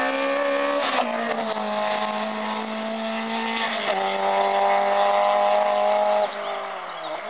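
Engine of a hatchback slalom race car pulling hard through the cones, its note held steady. It drops in pitch about a second in, jumps higher just before four seconds, then falls away and fades after about six seconds as the car pulls away.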